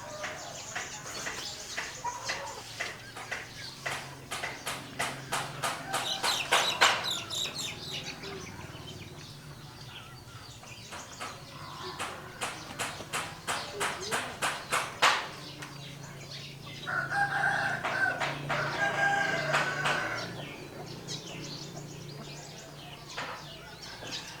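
Rooster crowing once, a held call of about three seconds, coming about two-thirds of the way in. Before it come quick runs of short, sharp sounds.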